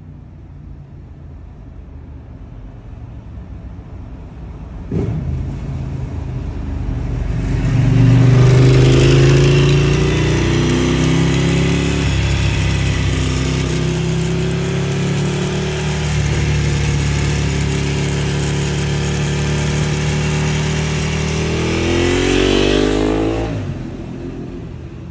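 Ducati 1098R's L-twin engine through a Termignoni racing full exhaust, ridden on the road. It is a low rumble at first, with a sharp knock about five seconds in, then runs loud and steady from about eight seconds. Near the end it revs up in pitch and then drops away.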